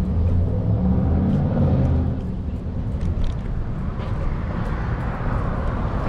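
City street traffic heard from a moving electric scooter: a low vehicle rumble, heaviest in the first two seconds, over steady street noise.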